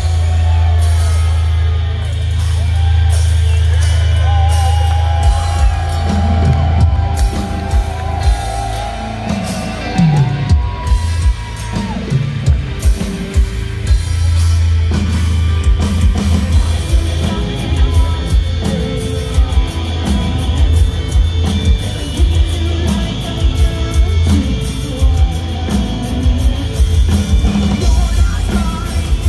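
Metal band playing live through a festival PA: distorted guitars, bass and drums with sung vocals. The drumming grows busier and faster about halfway through.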